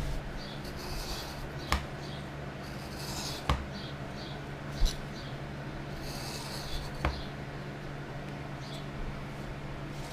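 Scratchy rubbing and a few sharp clicks from hand tools working leather, over a steady low hum.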